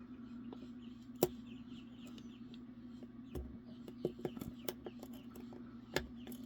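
Faint clicks and ticks of a lock pick working the pins of a five-pin pin-tumbler lock under tension, with two sharper clicks, one about a second in and one near the end, over a steady low hum.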